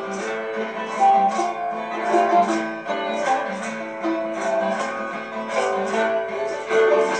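Acoustic guitars strummed in a steady rhythm with a melody on plucked strings: an instrumental passage of a folk song, with no singing.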